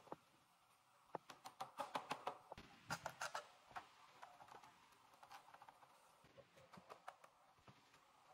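Quick runs of light knocks and clicks from a hammer and chisel picking termite-rotted wood out of the bottom of a wooden door, with crumbling pieces breaking away. The taps come thickest about a second in, then thin out to scattered clicks.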